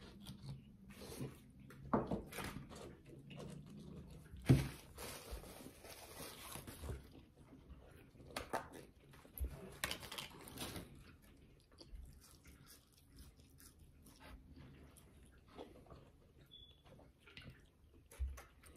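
Faint close-miked eating sounds: chewing and biting into a burger, with scattered mouth clicks and smacks.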